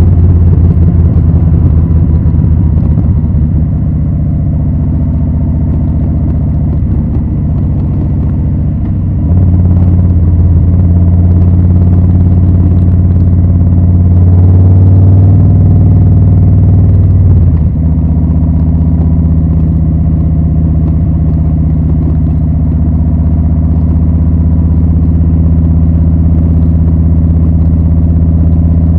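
2020 Harley-Davidson Low Rider S Milwaukee-Eight 114 V-twin running through Rinehart slip-on mufflers, a deep steady exhaust note. It eases off a few seconds in and picks up again about nine seconds in. It climbs to its loudest around fifteen seconds, drops suddenly at about seventeen seconds, then holds steady.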